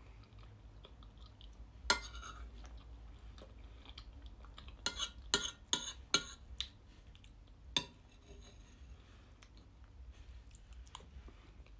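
Metal cutlery clicking and scraping against a plate while scooping angel cake and custard, with soft chewing between. The sharpest clicks come about two seconds in, in a quick cluster around five to six seconds, and once near eight seconds.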